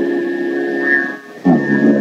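Male dhrupad voice holding a long, steady sung tone. It breaks off a little past a second in and comes back in with a short upward slide.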